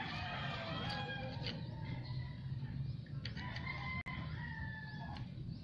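Roosters crowing: one crow tails off in the first second, and a longer crow runs from about three seconds in until shortly before the end.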